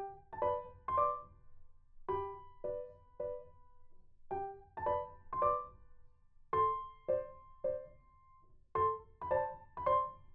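Background music: a piano playing a slow, gentle melody in short phrases of three or four notes, a new phrase about every two seconds.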